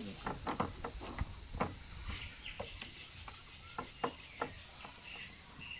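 Steady high-pitched insect chorus of crickets, with irregular light knocks and taps scattered through it.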